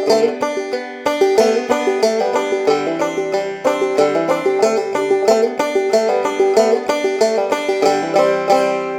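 Background music: a fast-plucked banjo tune, with many quick picked notes a second.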